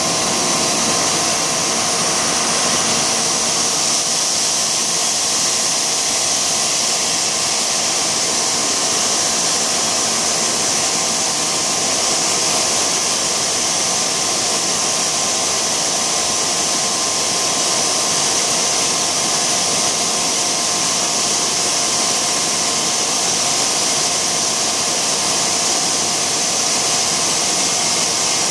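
Large TDW 350D extrusion blow moulding machine running: a loud, steady mechanical drone with a strong high hiss and a few faint steady tones.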